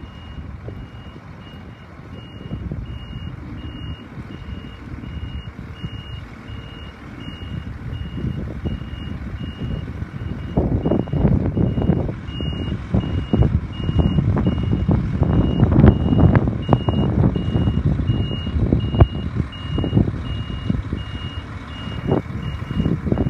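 Heavy site vehicle's reversing alarm sounding a steady series of evenly spaced high beeps over its running diesel engine. About ten seconds in, the engine grows louder and there are clatters and knocks.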